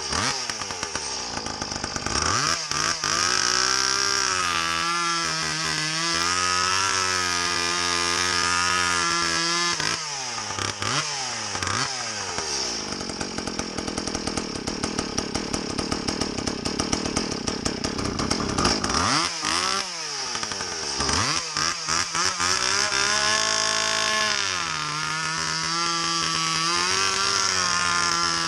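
Stihl MS170 chainsaw, a small 30cc two-stroke with a homemade exhaust pipe, running with its air filter removed while being tuned. It revs up and holds high revs, drops to a rough, uneven idle midway, then revs up again.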